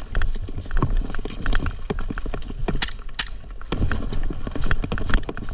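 Irregular clicks and knocks, several a second, over a low rumble of wind or handling noise on the microphone.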